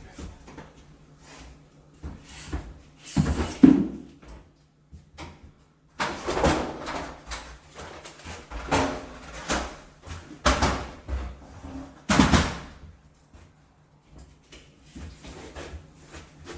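A blade dragged along a painted plaster wall in several separate rough scraping strokes, scoring a line that breaks the paint before the plaster is cut.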